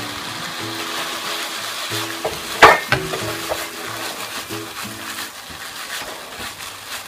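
Pasta and broccoli sizzling in a frying pan while the pan is tossed and stirred, finishing the pasta in its sauce. A single sharp clack, the loudest sound, comes a little under three seconds in, with a few lighter knocks around it.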